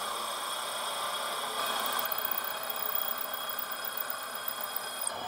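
Milling machine running a 12.5 mm end mill that is hand-fed to slot out a hole in a steel plate: a steady motor and spindle whine under the rasp of the cutter in the metal. The cutting gets louder and rougher about two seconds in.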